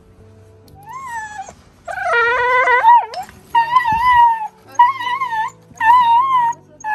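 A frightened small-breed dog howling and screaming as it is wrapped in a towel and pulled from its hiding place: about five high, wavering cries, the second one longer and lower, a sign of its terror of being handled.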